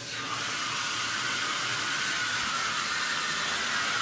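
Tap water running steadily from a bathtub spout with its diverter knob pulled up, a steady hiss. The diverter is worn and does not seal, so much of the water keeps pouring from the spout instead of going up to the shower.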